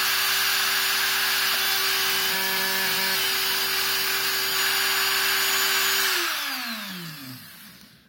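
Handheld rotary tool running at steady speed, its small diamond grinding bit working inside the hollow barrel of a handcuff key to widen the center bore. About six seconds in it is switched off, and its pitch falls as it spins down.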